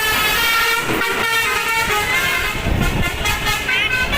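A bus's telolet horn, a tuned multi-tone air horn, playing a quick tune of stepped notes. The low rumble of an engine swells about two-thirds of the way in.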